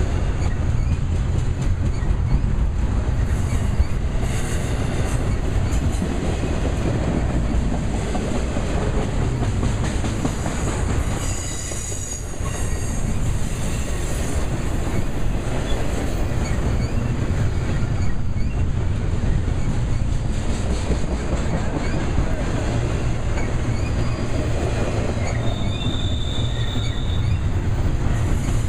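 Double-stack intermodal container train's well cars rolling past at close range: a steady low rumble and clatter of steel wheels on rail. Brief high wheel squeals come in about halfway through and again near the end.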